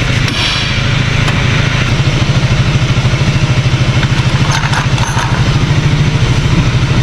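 Motorcycle engine idling with an even, rapid pulse, slightly louder about two seconds in.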